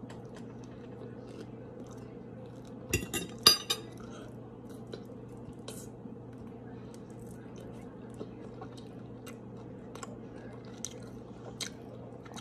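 Close-up chewing and lip smacking of a mouthful of shrimp, with scattered small clicks throughout. About three seconds in comes a quick cluster of metal clinks, a fork against a ceramic plate. A steady low hum runs underneath.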